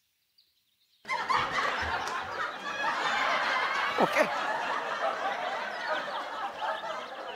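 Sitcom laugh track: a crowd of many people laughing together, starting about a second in.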